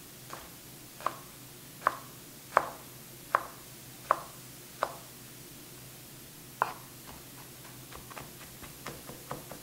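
Kitchen knife chopping garlic cloves on a cutting board: a run of sharp knocks about one every three-quarters of a second, one more after a short pause, then quicker, lighter taps near the end as the garlic is minced.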